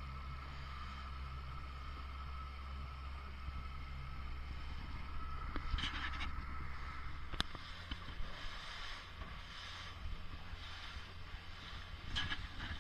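Yamaha 75 outboard motor running steadily as the panga moves under way, with wind and rushing water over it. A few sharp knocks come through about six seconds in, once more shortly after, and again near the end.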